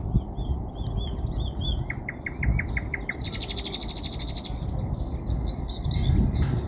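Sparrow chirping and singing. A run of short chirps comes first, then a quick series of about eight down-slurred notes, then a fast trill about three seconds in, and scattered chirps after it. A steady low rumble runs underneath.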